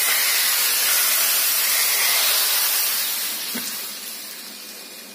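Hot tadka (spiced tempering oil) meeting the liquid kadhi, a loud sizzling hiss that fades away over the last couple of seconds.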